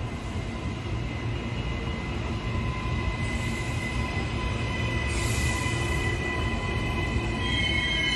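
Electric passenger train rolling into the station past the platform. A low rumble of wheels on rails grows steadily louder, with a faint steady whine and a short hiss about five seconds in. Near the end a high wheel squeal starts as the train brakes.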